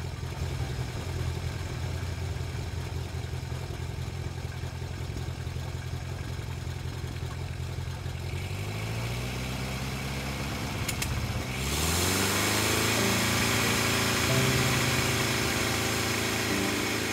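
Brickley prototype piston engine running steadily at idle on its test stand. After about eight seconds a tone rises in pitch, and about twelve seconds in music comes in, louder than the engine.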